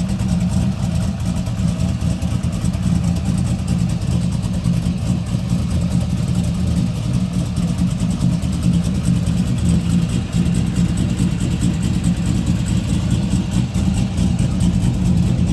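2001 Corvette Z06's LS6 V8 idling steadily, a low, even exhaust note.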